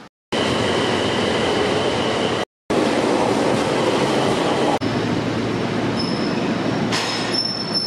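Kobe Electric Railway (Shintetsu) train running in an underground station: a steady, dense rail noise, broken by two brief gaps. From about six seconds in, thin high wheel squeal comes in over it.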